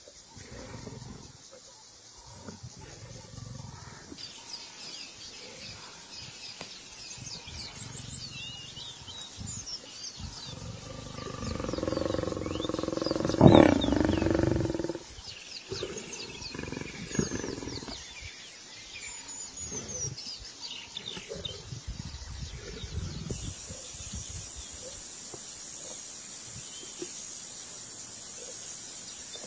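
Lions growling and snarling as they feed together on a kill, building to one loud growl about halfway through. Birds chirp in the background.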